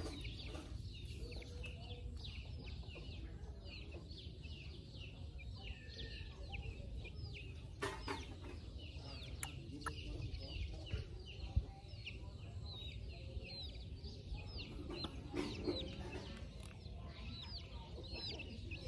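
Chickens clucking now and then under a near-constant run of short, high peeps from chicks.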